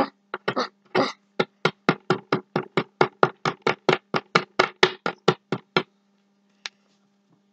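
Rapid, even strikes of a small hand tool chipping at a hard plaster gemstone-excavation block, about four knocks a second for roughly six seconds, then stopping, with a single tap after. A steady low hum runs underneath.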